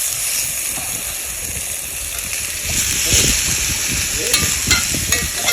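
Food sizzling on a grill: a steady frying hiss, with a few sharp clicks near the end.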